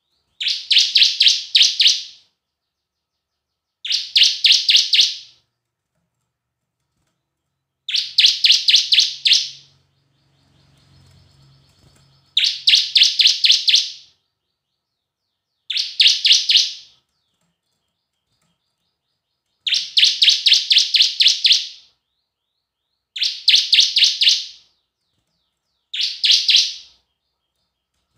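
Bar-winged prinia (ciblek) singing in eight short bursts. Each burst is a rapid run of sharp, high repeated notes lasting one to two seconds, with pauses of a couple of seconds between. This is the kind of song played as a lure (pancingan) to get other caged ciblek to sing.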